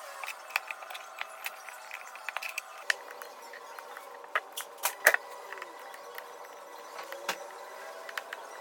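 Scattered light clicks and taps of small hand tools and phone parts being handled during a phone repair, with one sharper tap about five seconds in, over a faint steady hum.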